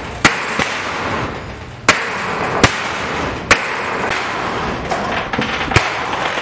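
Sledgehammers striking a corrugated iron sheet fence on a wooden frame: about five loud, sharp bangs at irregular intervals, with a few fainter knocks between them, over a steady background noise.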